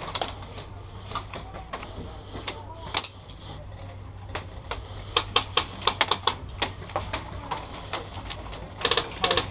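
Airsoft guns firing: scattered sharp single shots and short strings of shots, ending with a quick rapid-fire burst near the end.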